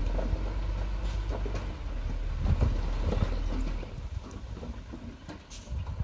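Komatsu D20P crawler bulldozer's diesel engine running with a steady low drone, with irregular metal clanks and knocks from its tracks and blade. The engine sound drops and gets quieter about four seconds in.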